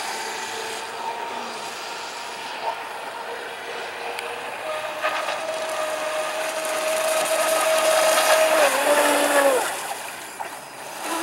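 Miss Geico RC speedboat's electric motor whining as the boat runs across the pond, a thin steady whine that grows louder and climbs slightly in pitch as it comes closer. About nine and a half seconds in the whine drops in pitch and fades as the boat slows.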